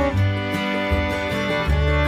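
Instrumental background music with string instruments over a bass line that changes note every half second or so.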